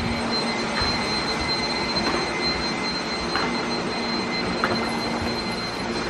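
Several robot vacuums running at the same time, the nearest a Shark IQ robot vacuum: a steady whirring hum with a thin, high, constant whine over it.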